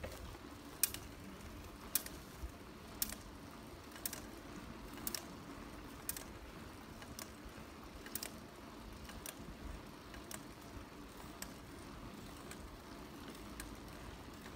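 Bicycle being ridden on a wet paved path: a steady low tyre-and-road noise with a sharp mechanical click repeating about once a second, loudest in the first few seconds and fainter later.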